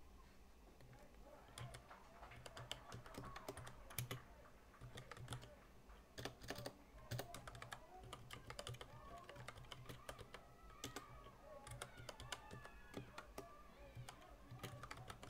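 Faint typing on a computer keyboard: irregular, quick key clicks, several per second with short pauses, over a low steady hum.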